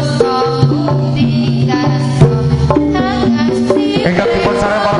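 Live Javanese jaranan gamelan music: hand drums (kendang) beat over a melody of ringing tuned bronze gong-pots, with a deep, loud stroke about two seconds in.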